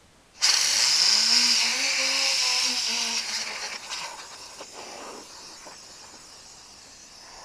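Compressed-air blowgun blasting dust out of a desktop computer case: a sudden loud hiss about half a second in, with a low hum underneath that rises over the first second and then holds. The hiss weakens through the second half as the air compressor's tank runs down.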